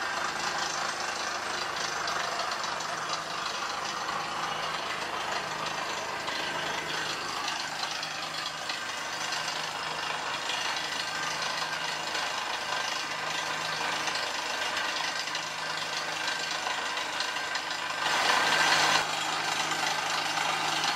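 Truck-mounted air drill rig hammering through limestone: a steady engine drone with the rattle of the air hammer and the rush of compressed air blowing out cuttings. A louder burst of noise lasts about a second near the end.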